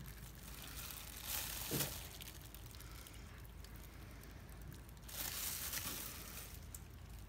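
Thin plastic crinkling and rustling in two short bursts, one about a second in and another about five seconds in, while soap batter is poured into a mold.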